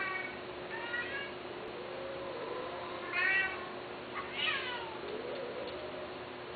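Long-haired Persian-type cats meowing during mating: a series of about five short calls, the loudest a little past three seconds in, and a longer falling call soon after.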